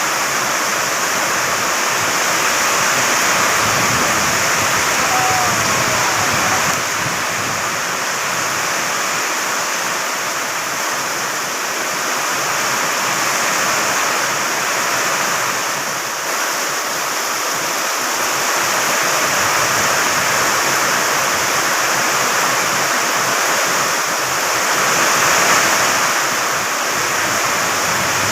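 Heavy rain pouring down in strong wind: a dense, steady rushing hiss that swells a little a few seconds in and again near the end.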